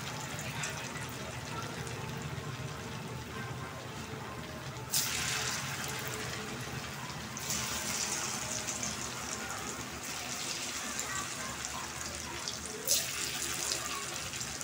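Dhoka lentil cakes deep-frying in hot mustard oil in a kadai, a steady sizzle that flares up suddenly as further pieces go into the oil, about five seconds in and again near the end.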